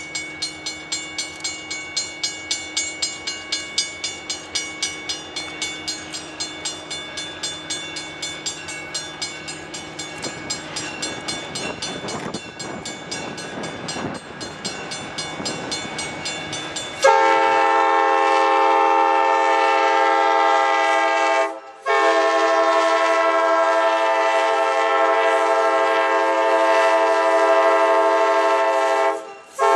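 Passenger train cars rolling past, their wheels clicking over rail joints about twice a second. About seventeen seconds in, a diesel locomotive's multi-chime air horn sounds in long, loud blasts, broken twice by brief gaps.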